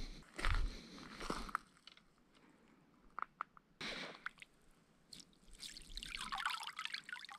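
A few scuffing steps on the gravel shore, then a few small drips; from about five and a half seconds in, water pours and trickles off a wire-mesh crayfish trap as it is hauled up out of the shallow lake by its rope.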